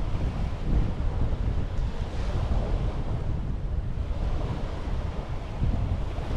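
Sea waves washing onto a beach, one wash swelling about two seconds in, with wind buffeting the microphone as a steady low rumble.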